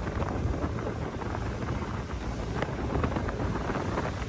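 Wind buffeting the microphone over the steady low rumble of a car ferry under way in a choppy sea.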